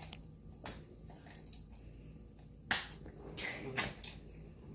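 Small plastic Play-Doh tub being handled and pried at: scattered clicks and crackles with a few sharper snaps.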